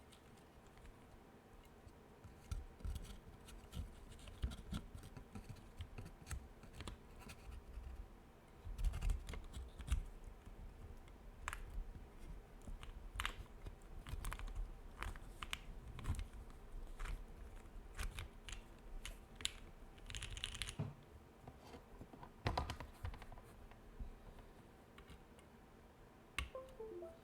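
Keystrokes on a Portal mechanical keyboard with lubed Lavender switches on an FR4 plate, in an irregular run of clacks, over a faint steady air-conditioner hum. About twenty seconds in there is a brief scraping sound.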